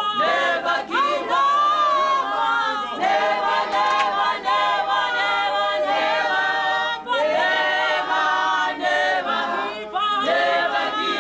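Unaccompanied choir singing in long held phrases, with short breaks between phrases about three, seven and ten seconds in.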